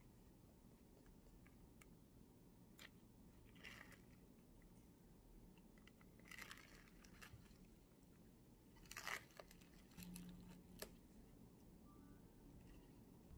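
Faint crinkling and crackling of thin plastic film being peeled off a black plastic lunch tray, coming in a few short bursts, the loudest about two-thirds of the way through.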